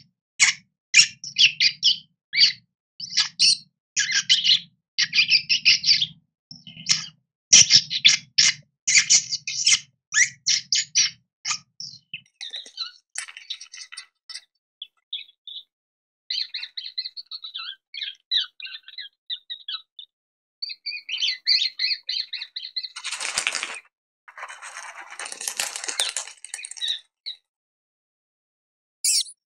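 Rodents squeaking: a quick run of short, high squeaks for about twelve seconds, then sparser squeaks. A harsher, noisy burst comes about two-thirds of the way through.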